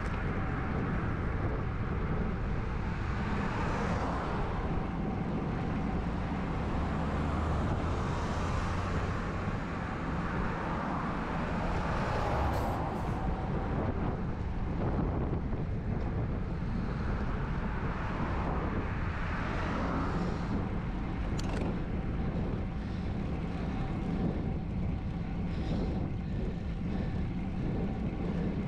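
Steady rush of wind over a GoPro HERO9's microphone on a moving road bike, with passing traffic swelling and fading several times.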